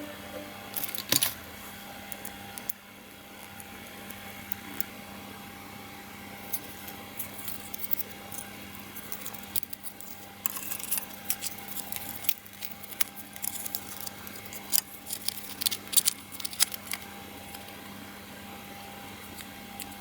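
Small hard objects being handled: irregular clicks and light clatter, thickest in the second half, over a steady faint electrical hum.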